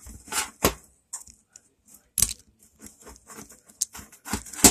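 Handling noise: irregular small clicks, taps and brief scrapes as a small engine carburetor is turned and gripped in the fingers close to the microphone, the sharpest clicks about two seconds in and near the end.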